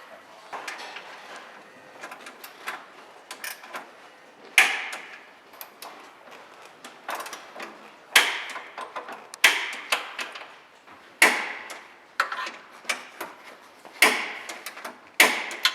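Irregular sharp knocks and clanks with a short ring, a dozen or more, the loudest coming every one to two seconds, from parts and tools being handled in a car workshop.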